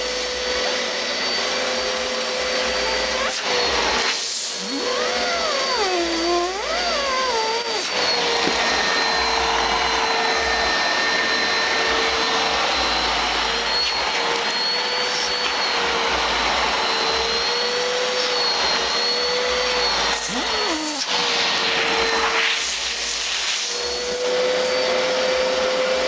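Hoover Platinum Collection cyclonic bagless upright vacuum cleaner running steadily, a constant rush of air with a high motor whine. About four seconds in, a whistle wavers up and down in pitch for a few seconds.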